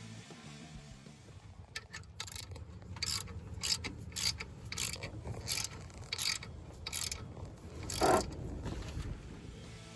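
Socket ratchet wrench worked in short strokes, about a dozen bursts of clicking roughly two a second, with one louder stroke near the end.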